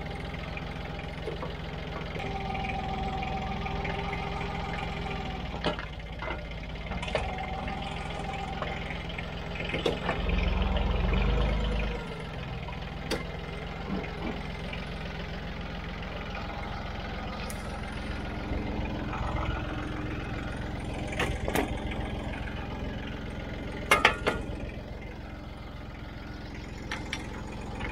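Small Yanmar F17d diesel tractor engine running steadily at idle, with a deeper, louder rumble for about two seconds around ten seconds in. Scattered knocks and clanks of the steel front loader, the loudest a sharp double clank about 24 seconds in as the bale spear is hooked on.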